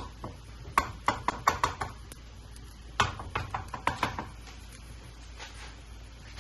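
Quick runs of sharp knocks from kitchen utensils or cookware, about half a dozen strokes about a second in and another run about three seconds in, then only faint handling.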